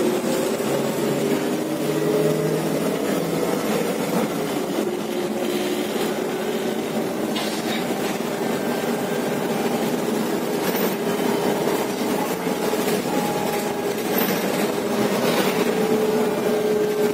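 Ride noise inside a moving Irisbus Agora L GNV articulated bus: its Renault MGDR natural-gas engine and ZF automatic gearbox running with a steady whine that drifts slightly up and down in pitch, over a continuous rumble. Scattered short rattles and creaks come from the bodywork and the articulation joint.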